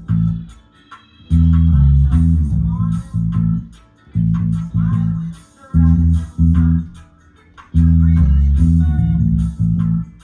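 Bass guitar playing a repetitive reggae bass line in short phrases of low notes, with brief pauses between phrases.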